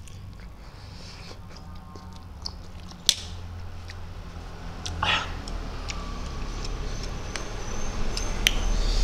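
Close-up eating sounds of someone chewing and slurping spicy instant noodles. There is a sharp click about three seconds in, a short breathy puff a couple of seconds later, and light clicks near the end as the fork works the noodles on the plate.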